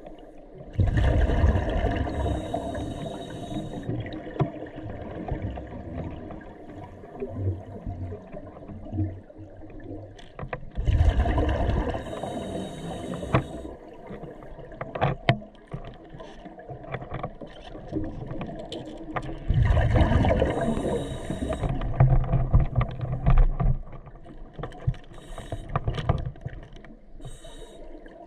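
Scuba diver breathing through a regulator underwater. Three breaths come about nine seconds apart, each a loud rumble of exhaled bubbles with a hiss from the regulator. Small clicks and knocks of gear fall between the breaths.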